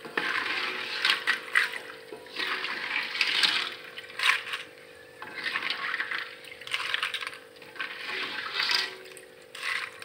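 Kerupuk crackers scooped out of hot oil in a wok with a wire mesh strainer and spatula: the oil sizzles and the crackers rattle and scrape in irregular bursts, over a steady low hum.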